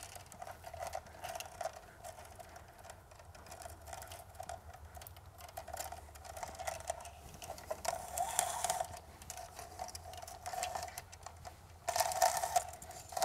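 Thin anchor-light wires being pulled through a plastic mount: a faint run of small clicks and rubbing, louder for a moment near the end, over a faint steady hum.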